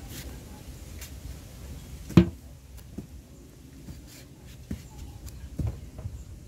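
Large knife cutting into a firm unripe green mango held in the hand, in short crisp strokes, with one sharp knock about two seconds in and a few fainter ticks later.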